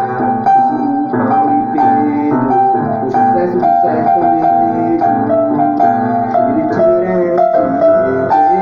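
Instrumental break of a sertanejo song: keyboard playing the melody over the backing music, with no singing.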